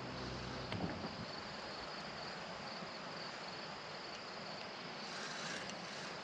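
Crickets chirring steadily in a high, even trill over a soft hiss. A low hum stops about a second in.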